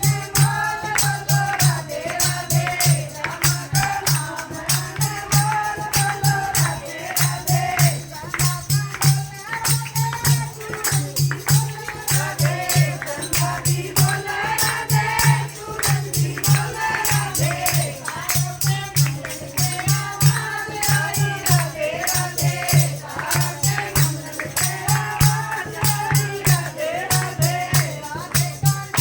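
Group singing a Hindu devotional kirtan, with a fast, even jingling of hand percussion and a steady drum beat under the melody.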